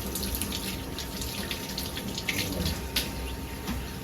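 Onions frying in a pan, sizzling with many small crackles, with a sharp click about three seconds in.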